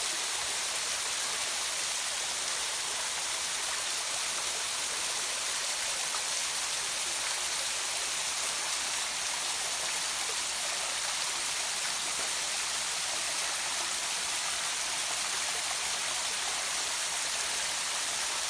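Small waterfall running low, its water falling and splashing in a steady rushing hiss.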